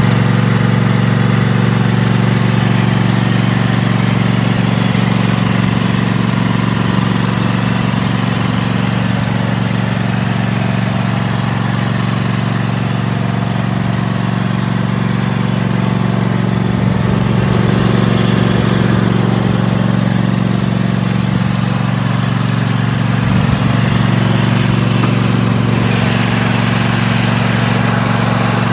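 Cub Cadet XT1 riding mower's Kohler 7000 Series 22 hp V-twin engine running steadily with an even, unchanging hum.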